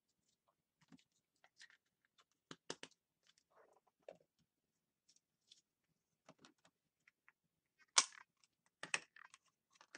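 Plastic Play-Doh tubs and lids being handled: scattered light clicks and knocks, with a sharper knock about eight seconds in.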